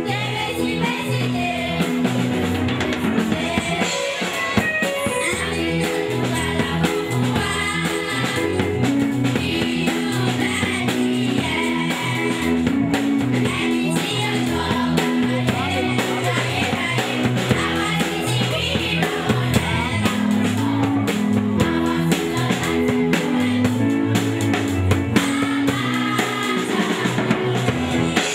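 A girl singing into a microphone over backing music with drums and bass, played through PA loudspeakers.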